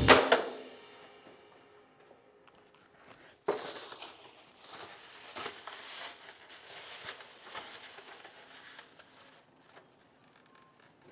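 Thin plastic carry-out bag crinkling and rustling as it is handled, starting abruptly about three and a half seconds in and dying away a little before the end.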